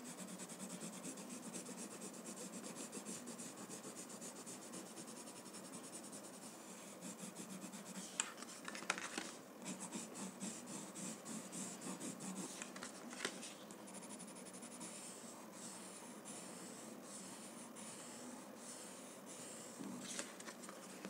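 Watercolor pencil shading on a paper card: faint, rapid back-and-forth scratching strokes, busiest around the middle, with a few sharper ticks of the pencil.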